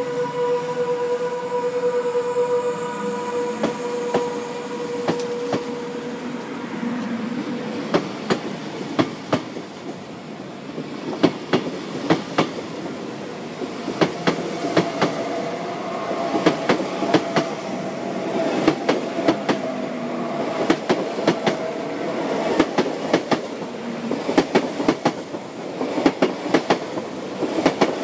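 SBB ICN tilting electric train (RABDe 500) rolling past along the platform, its wheels clicking over the rail joints, the clicks coming more and more often as it goes on. A steady hum is heard for the first six seconds or so.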